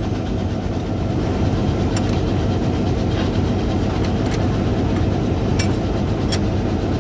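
Diesel engine of a Hyundai Rotem EMD-licensed diesel-electric locomotive idling with a steady low hum, standing still during coupling. A few sharp metal clicks come from the coupler being worked by hand.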